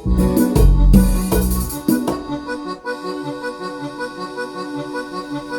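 Yamaha Genos keyboard playing a cumbia norteña accompaniment style, its Musette accordion voice holding chords over a bouncing bass line. The first two seconds are the loudest, then the pattern settles into a steady groove.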